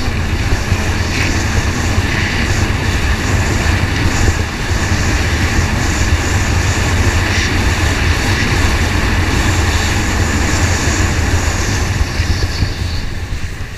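Stand-up racing jet ski running hard at speed, its engine heard close from a camera mounted on the craft, mixed with rushing water and wind. The engine note dips briefly about four seconds in and eases slightly near the end.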